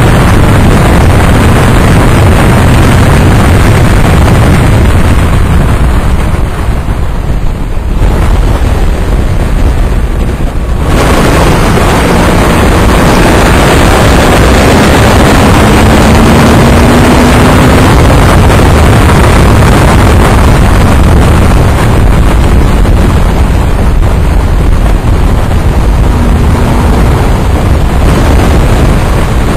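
Heavy wind rush on the microphone of a camera mounted on a Honda ST1100 Pan European at track speed, with the bike's engine running underneath. The rush eases for a few seconds about seven seconds in, then comes back, and a faint rising engine note shows about halfway through.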